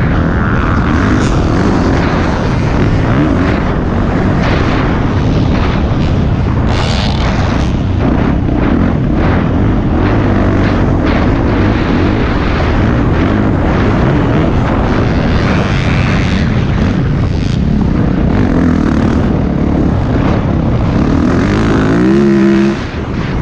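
Dirt bike engine ridden hard, its pitch rising and falling with throttle and gear changes; about 22 seconds in the revs climb quickly, then the sound dips sharply for a moment.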